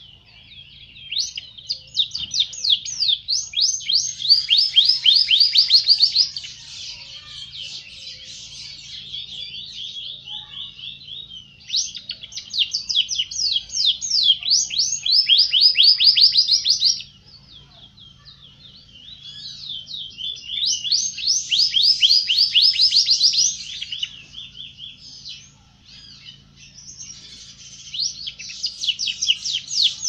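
Domestic canary singing: long phrases of rapid trills and warbles, four loud bursts of several seconds each with softer twittering between them.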